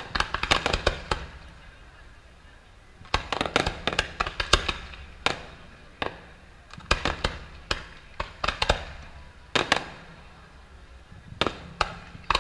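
Fireworks display: volleys of sharp bangs from fireworks bursting, several in quick succession in each volley, with pauses of a second or two between volleys.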